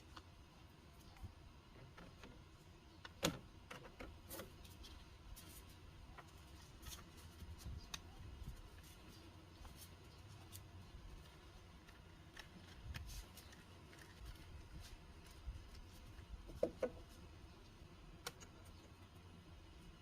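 Faint scattered clicks and taps of laptop parts and small tools being handled, with a sharper click about three seconds in and a quick double click near the end.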